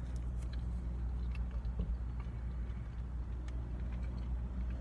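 Chewing: scattered small mouth clicks over a steady low hum.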